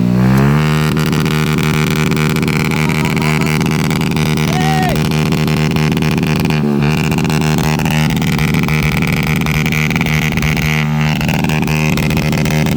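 Motorcycle engine revved hard and held at high rpm through an Akrapovic-branded aftermarket exhaust: a loud, steady drone. The throttle dips briefly about seven seconds in and comes straight back up.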